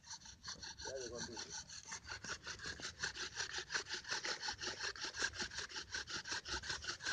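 Bow drill: a wooden spindle grinding in a dry wooden hearth board, rasping with each pull of the bow in a fast, even rhythm. The hearth is already smoking as the friction builds toward an ember.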